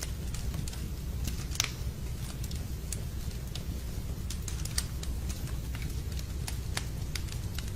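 Wood logs burning in a fireplace: irregular sharp crackles and pops over a steady low rumble of the flames, with a louder pop about a second and a half in and another near five seconds.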